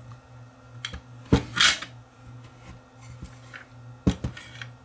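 Handling of an old portable radio's metal chassis on a workbench: a sharp knock about a second in, followed by a brief scraping rustle, and another knock near the end, over a steady low hum.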